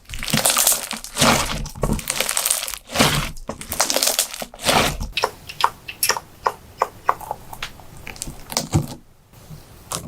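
Slime being squeezed and pressed by hand, crackling and popping. It starts as dense crackling, then about halfway through becomes a run of sharp separate pops before going quieter near the end.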